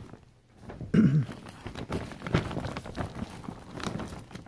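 Thin plastic shopping bags and plastic packaging rustling and crinkling as they are handled, in an irregular crackle. A short, low sound about a second in is the loudest moment.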